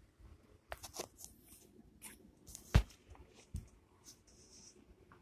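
Scattered crackles and clicks, with one sharp knock just before the three-second mark and a smaller knock a little under a second later.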